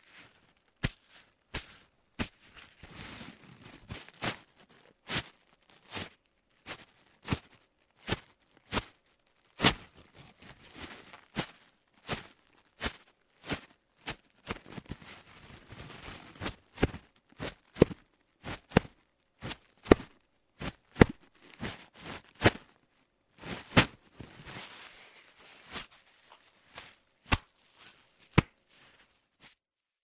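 Repeated impacts and friction on a soft sheet: irregular sharp hits, some much louder than others, with stretches of rubbing and scraping between them.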